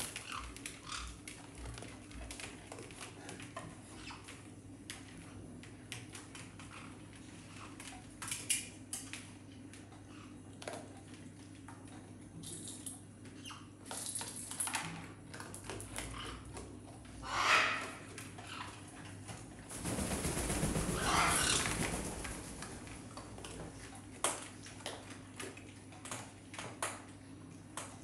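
A raccoon eating dry kibble from a stainless steel bowl: many small crunching clicks and clinks of food against the metal. A louder stretch of noise lasts about two seconds, around two-thirds of the way in.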